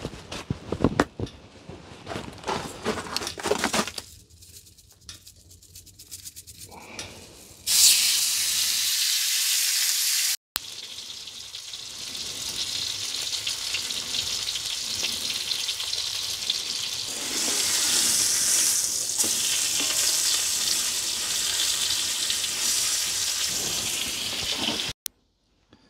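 Steak searing in butter in a hot cast-iron skillet: a loud, steady sizzle that starts suddenly about eight seconds in as the meat goes into the pan. Before it, a few knocks and scrapes of utensils against the pan.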